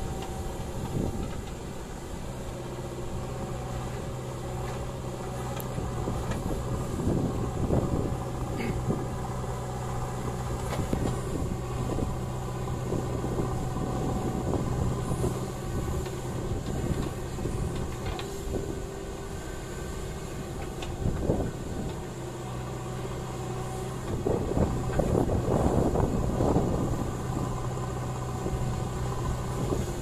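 JCB 3DX backhoe loader's diesel engine running steadily while the backhoe digs soil and swings to dump it into a truck, its note rising and falling with the hydraulic load. It has louder, rougher spells, the longest near the end, and a few short knocks.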